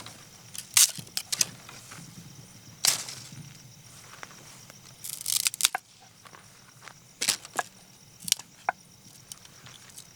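Fresh green pea pods being snapped and split open by hand: a scatter of sharp cracks and short rustles, the biggest a little under a second in, at about three seconds, and a crackling run around five seconds.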